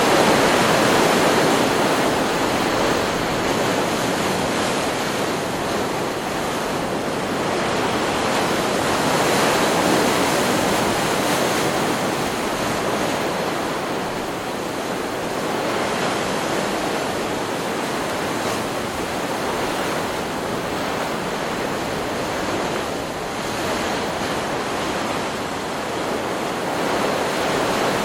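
Ocean surf from a stock beach recording: waves breaking and washing ashore in a continuous wash that swells louder every several seconds.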